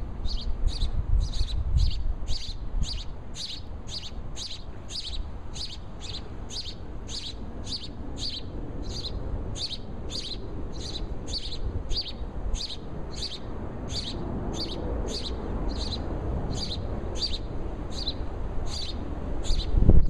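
House sparrows chirping: a steady series of short, identical chirps about twice a second, over a low rumble.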